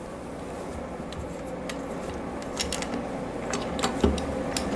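Light metal clicks and taps, with some rubbing, as the aluminium rocker box of a Harley-Davidson Evolution V-twin is worked loose and lifted from the cylinder head, its bolts still in place. The taps come irregularly and grow more frequent in the second half.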